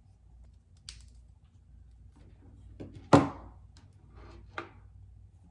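Handling noises as the charging cable and a device are moved about: a light click about a second in, one sharp knock just after three seconds, and a couple of softer knocks near the end.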